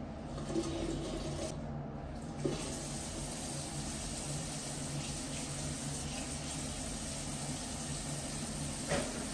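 Bathroom sink tap running into a ceramic basin as hands are washed under it, a steady hiss of water that settles in about two and a half seconds in. A light knock sounds just before the end.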